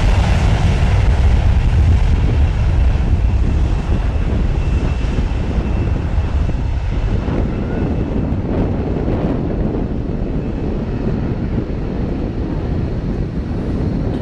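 Jet airliner's engines at takeoff thrust: a loud, deep rumble that holds for about four seconds and then slowly fades as the aircraft moves away.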